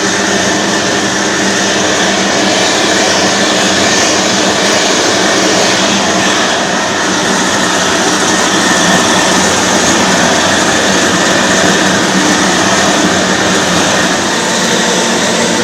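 Large gas torch burning with a loud, steady rushing noise while heating a copper boiler for silver soldering.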